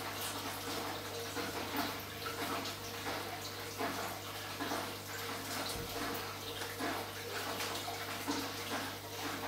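Aquarium water bubbling and trickling from the tank's filter, with a steady low hum underneath.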